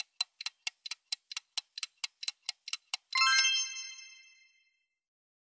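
Countdown timer sound effect ticking about four times a second, then a bright bell-like ding about three seconds in that rings out over about a second: the reveal chime.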